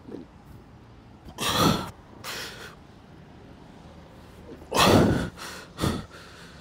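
A man's hard breathing while straining through pike push-ups: two loud, gasping exhales, about a second and a half in and about five seconds in, each followed by a shorter, weaker breath.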